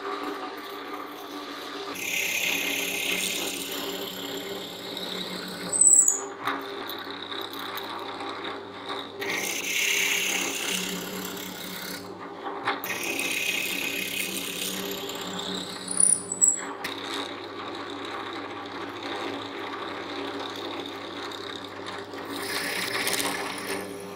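Drill press motor running steadily while a bit is fed into the end grain of wooden slats to bore dowel holes, in several separate plunges with a harsher, higher cutting noise during each. Two sharp, loud squeaks break in, about six and sixteen seconds in.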